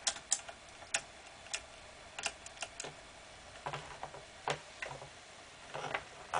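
Irregular light clicks and taps, a dozen or so, with a few duller knocks in the second half.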